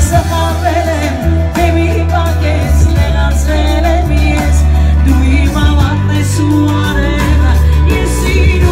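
A woman singing an Armenian song into a microphone over loud amplified instrumental backing with a steady deep bass line.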